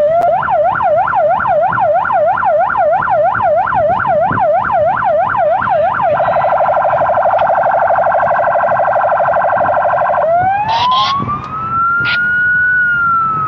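Santa Fe police patrol car's electronic siren cycling through its tones. A fast yelp sweeps up and down several times a second. About six seconds in it switches to a very rapid warble. About ten seconds in it changes to a slow wail that rises and starts to fall near the end.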